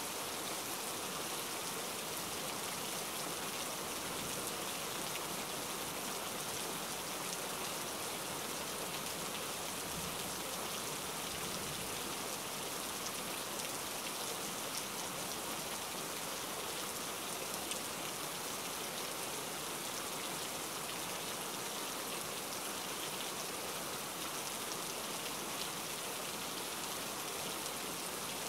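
Steady rain falling, an even hiss with the odd louder drop.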